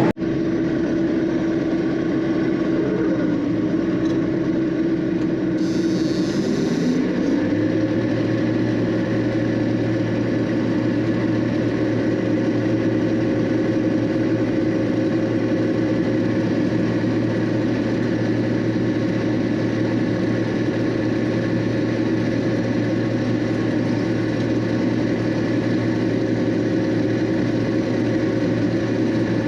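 John Deere 6620 combine running steadily, its engine and machinery going up in pitch about seven seconds in and then holding there. A short high hiss comes about six seconds in.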